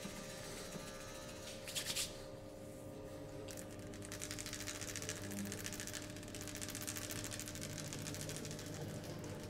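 Hands rubbing over skin in massage strokes, making a dense, fine crackling friction. There is a short, louder crackle just before two seconds in.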